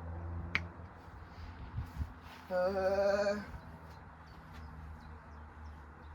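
The washing machine's steady low hum, with a sharp click about half a second in. About two and a half seconds in comes a wavering, bleat-like call lasting about a second, the loudest sound.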